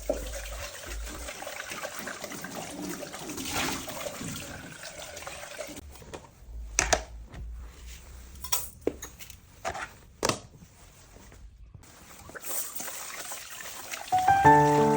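Water running and splashing, then several sharp knocks and clatters. Music begins near the end.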